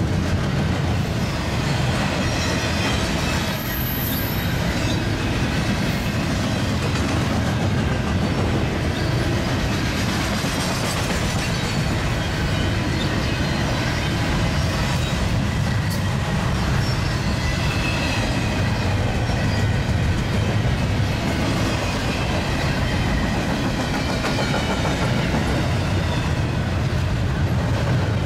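Double-stack intermodal freight train rolling past, a steady, even noise of steel wheels running on the rails, with faint wheel squeal at times.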